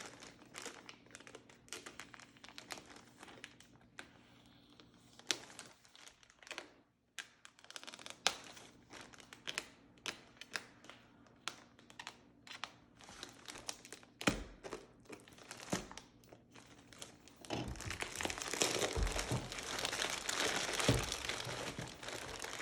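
Plastic packaging crinkling and crackling as a taped-up package is handled and opened, in scattered crackles at first, then continuous louder crinkling about three quarters of the way in.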